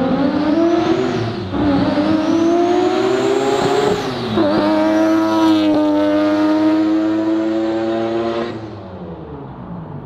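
Mazda RX-7's turbocharged three-rotor rotary engine accelerating hard past on the street. It revs up through the gears with two upshifts, about a second and a half in and about four seconds in, then holds a steady note as the car pulls away and fades near the end. The driver thinks an intake pipe blew off on the shift into third, leaving it running without boost.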